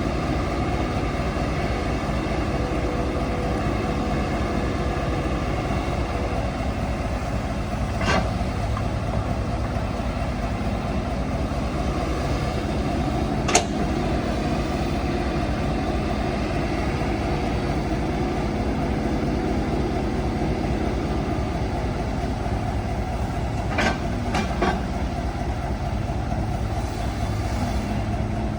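Heavy earthmoving machine's diesel engine running steadily, with a few short sharp knocks: one about eight seconds in, one near the middle, and two close together near the end.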